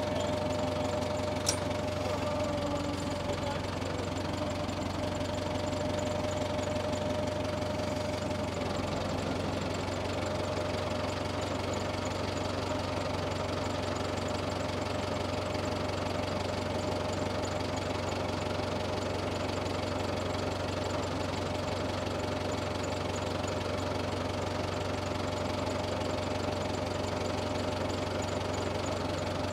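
Tiger tractor's engine running steadily, heard up close, with a single sharp click about a second and a half in.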